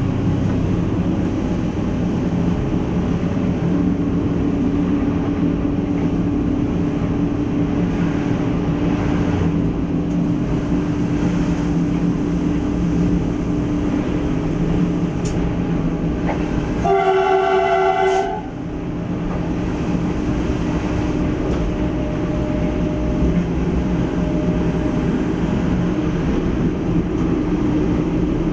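ATR 220 diesel multiple unit under way, heard from the driver's cab as a steady engine drone with running noise. About seventeen seconds in, the train's horn sounds one blast of about a second and a half.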